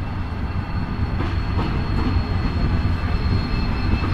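A freight train passing close by: General Motors diesel locomotives hauling empty freight wagons, with a low steady rumble and a few wheel clicks over rail joints. A faint, thin, high whine holds steady throughout.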